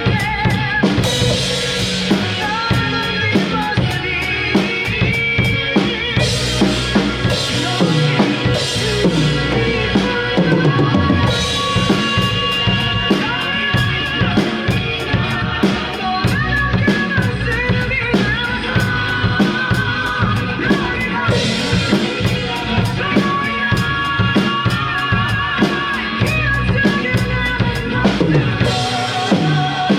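Drum kit played along with a recorded pop song: kick and snare keep a steady beat, with cymbal crashes every few seconds, over the song's backing track and sung vocal.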